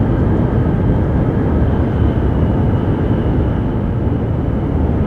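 Steady running rumble of an H5 series Shinkansen travelling at speed, heard inside the passenger cabin.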